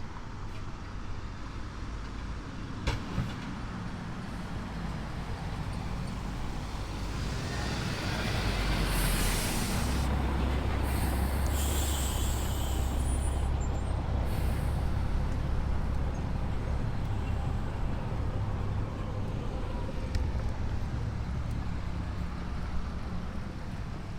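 Diesel dump truck engine running and pulling away, its rumble growing louder about six seconds in, with loud air-brake hissing from about eight to fourteen seconds in.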